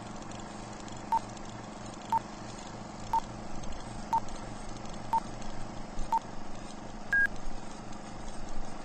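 Six short electronic beeps at the same pitch, one per second, then a single higher beep about seven seconds in, over a steady low hum.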